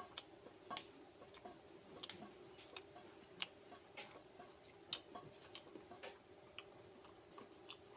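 A person chewing a mouthful of food, faint and close, with irregular sharp wet mouth clicks and smacks about two a second.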